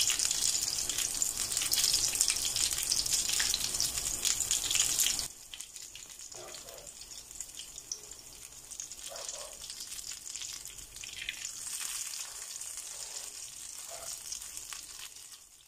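Potato-and-ground-meat patties frying in hot oil in a pan, the oil sizzling and crackling. The sizzle is loud for about five seconds, then drops suddenly to a softer steady sizzle, with a few short scrapes as a spatula turns the patties.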